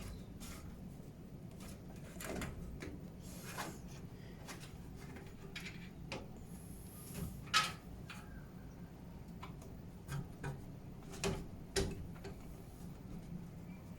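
A motherboard being shifted around inside a PC case to line its holes up with the standoffs: scattered light clicks, scrapes and knocks of the board and hardware, the sharpest a little past halfway and two more a few seconds later, over a steady low hum.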